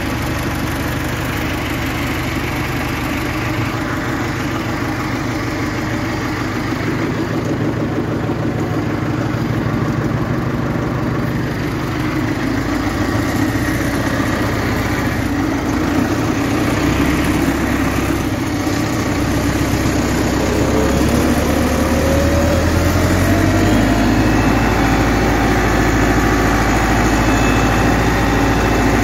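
Massey Ferguson 385 tractor's four-cylinder diesel engine running steadily under load while pulling a three-tine chisel plough, heard from the driver's seat. The engine grows louder through the second half and rises in pitch between about two-thirds and four-fifths of the way through.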